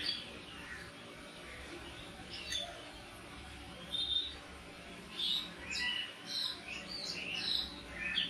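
Birds chirping: a few scattered short chirps, then a quicker run of them in the second half.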